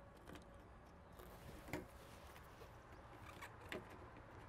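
A few faint clicks and knocks as an air filter element is worked by hand into a tractor's air cleaner housing, against near silence.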